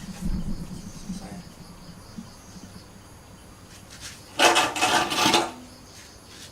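A brief scraping, rustling noise of things being handled, lasting about a second and starting about four and a half seconds in, over a faint low hum.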